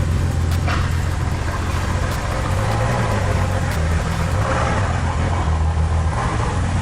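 Ferrari 812 Superfast's V12 engine running at a steady idle, with slight rises and falls in engine speed. It is running again after being rebuilt.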